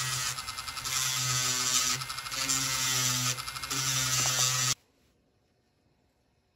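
Small electric rotary tool running with its bit against a diecast car's chassis base, drilling into it. A steady motor hum with a high hiss, dipping in level three times, then cutting off suddenly near the end.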